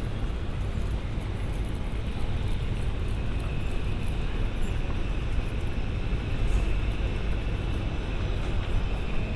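JR Freight EH500 electric locomotive hauling a container freight train along the tracks: a steady low rumble of wheels on the rails. A faint high steady tone comes in about two and a half seconds in.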